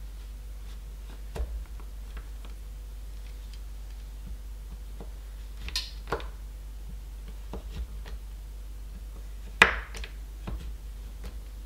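Chef's knife cutting squares of milk chocolate on a wooden cutting board: a few scattered sharp cracks and knocks as the blade snaps through the chocolate and hits the wood. The loudest comes near the end.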